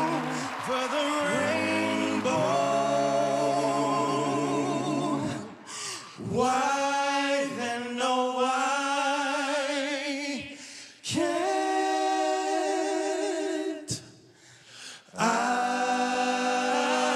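Male a cappella vocal quartet singing close harmony into handheld microphones, holding chords with vibrato. The voices break off briefly three times between phrases.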